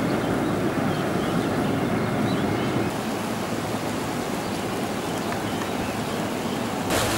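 Volcanic hot springs boiling and venting steam: a steady rushing noise that shifts abruptly about three seconds in and again near the end.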